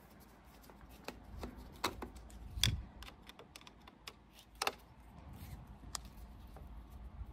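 Torx screwdriver backing the screws out of a heat pump's sheet-metal front cover: scattered small clicks and ticks, the loudest about two and a half and four and a half seconds in.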